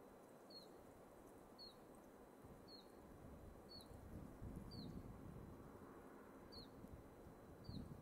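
Faint wind in pine trees, a low rushing that swells a little midway and again near the end. Over it, a bird repeats a short, high chirp that drops in pitch, about once a second.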